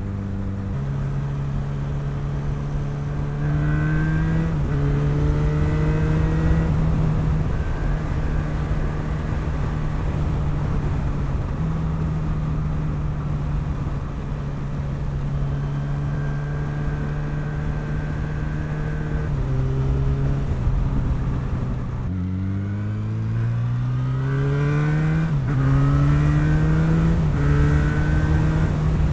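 Motorcycle engine running on the move over wind noise. Its note holds steady for long stretches, then climbs through a series of rising revs and upshifts as the bike accelerates, most clearly in the last several seconds.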